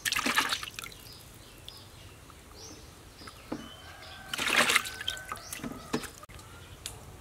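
Water sloshing and splashing as hands wash and rub squid pieces in a large aluminium bowl of water, with louder splashes at the start and again about four and a half seconds in.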